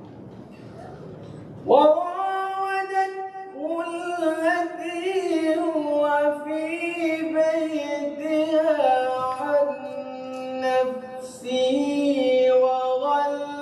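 A man reciting the Quran in melodic tajweed style (qiraat), beginning about two seconds in and drawing out long held notes with ornamented turns that glide up and down in pitch.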